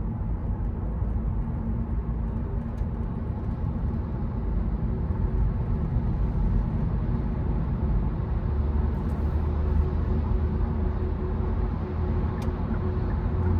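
Car driving on a wet road: a steady low rumble of engine and tyres with a haze of road noise. A faint steady hum joins about five seconds in.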